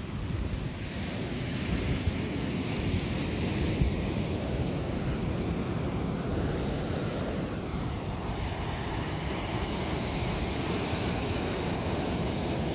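Wind buffeting the microphone over the steady wash of waves breaking on a boulder shore.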